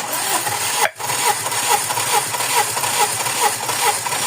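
Toyota 4A-FE four-cylinder engine being cranked on the starter for a compression test of cylinder 4, without firing. It starts suddenly, drops out briefly about a second in, then cranks steadily with a regular pulse a little over twice a second.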